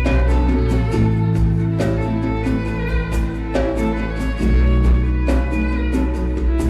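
Live nuevo flamenco band: violin carrying the melody over acoustic guitars, bass and a steady drum beat.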